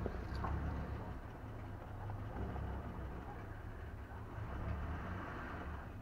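Electric drill running steadily with a low hum as it bores deeper into a rusted, stripped screw in a truck door handle mount, easing off near the end.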